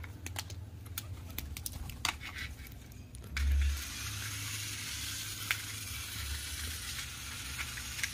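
Small plastic clicks and taps from handling a toy RC car's remote control and its batteries, over a low rumble of wind on the microphone with one heavier buffet about three and a half seconds in. A steady hiss comes in at about the same point and holds.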